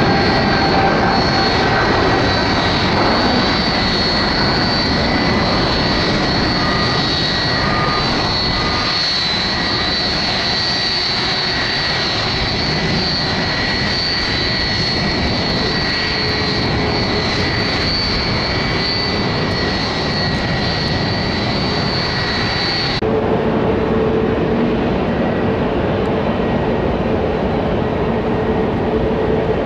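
Jet engines of a United Airlines Boeing 777-200 on take-off, a loud steady rush with a high whine. About 23 seconds in, the sound cuts abruptly to the jet engines of a Bombardier Global Express 6000 business jet starting its take-off, a steadier sound with lower-pitched tones.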